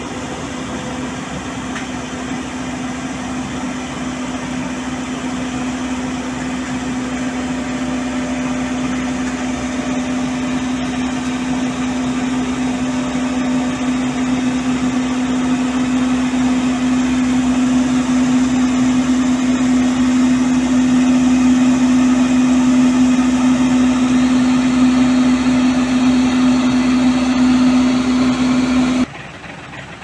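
Sumitomo HA60C crawler asphalt paver's diesel engine running with a steady hum, growing gradually louder as the paver creeps off the self-loader truck on its tracks. The sound cuts off suddenly near the end.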